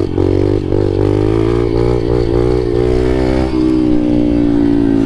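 Yamaha dirt bike's single-cylinder engine running under way at a steady speed. Its pitch eases slowly lower, with a small drop about three and a half seconds in.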